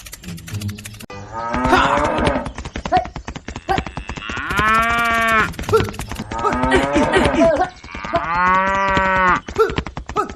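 Cow mooing several times, long drawn-out calls, loudest twice in the second half.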